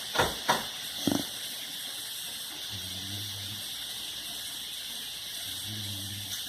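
Pit bull snoring: two low snores about three seconds apart over a steady hiss, after a few short knocks in the first second or so.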